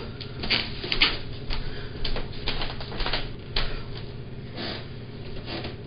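A person moving about a room, picked up through a home security camera's microphone: soft, irregular scuffs and rustles about every half second over a steady low hum.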